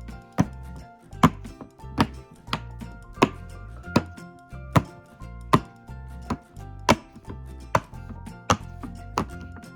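Silicone pop-it fidget toy bubbles being pressed one after another, a sharp pop about every three-quarters of a second, over quiet background music.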